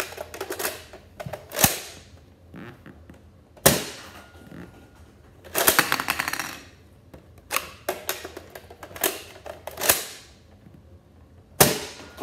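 Nerf dart blaster being fired: a string of sharp plastic snaps and clacks, with a quick rattling cluster about halfway through.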